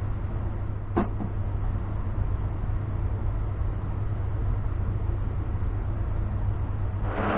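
Steady low hum of workshop background noise, with a single sharp wooden click about a second in as the pinned slats of a folding wooden frame knock together while it is folded. Near the end a much louder machine noise starts suddenly.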